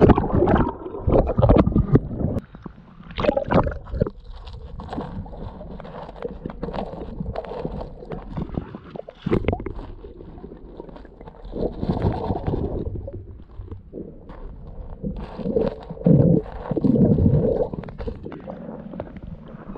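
Muffled gurgling and sloshing of river water as a Rottweiler wades through the shallows, heard through a camera held partly underwater. Irregular splashes come through, heaviest in the first few seconds and again near the end.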